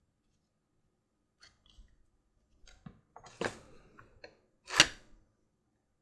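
Hand tools being handled on a leatherworking bench: a few light clicks and a short scrape, then one sharp knock of a tool set down near the end.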